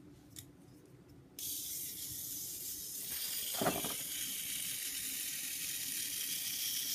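Small electric motor and gears of a line-following toy tank running as it drives along a drawn marker line: a steady high whir that starts suddenly about a second and a half in.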